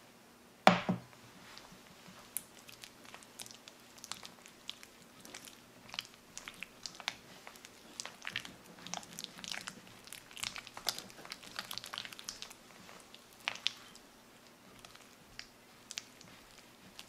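Spatula stirring soft cream cheese and melted gelatin in a glass bowl: irregular wet, sticky smacks and small clicks, busiest in the middle. One sharp knock sounds less than a second in.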